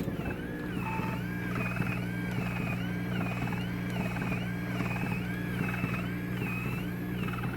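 Syneron VelaShape 3 machine running under test: a steady low hum with a warbling tone over it that rises and falls about once a second.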